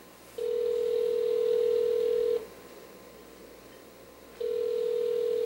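Telephone ringback tone from a cordless phone handset: a steady low tone sounding for about two seconds, a two-second gap, then a second tone. It is the signal that the line is ringing at the other end while the call waits to be answered.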